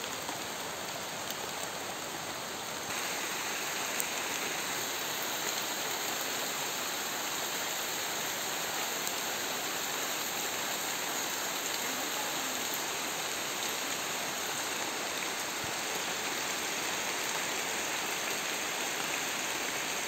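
Steady rain falling on a shallow rocky river, an even hiss that grows a little louder about three seconds in.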